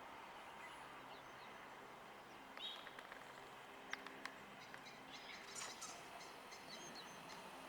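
Quiet outdoor ambience with a few faint, short bird chirps from distant birds, scattered through the second half.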